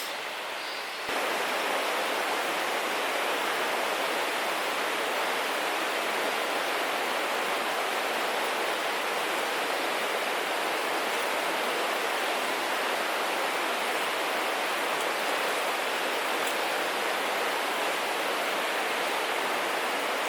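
Steady rushing of flowing water, starting abruptly about a second in and holding at an even level.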